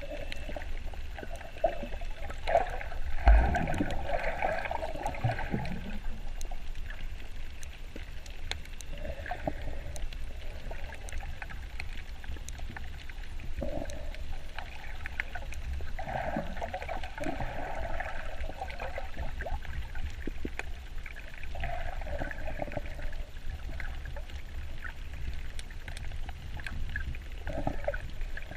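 Muffled underwater water sound: gurgling and bubbling that surges irregularly every few seconds over a steady low rumble, with one dull thump about three seconds in.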